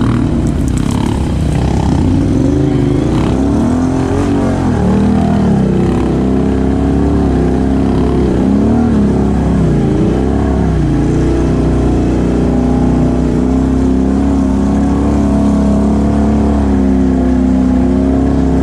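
2017 Can-Am Outlander XMR 1000 ATV's V-twin engine with a Big Gun exhaust, revving up and down several times as it pulls through mud, then holding a steady note for the second half.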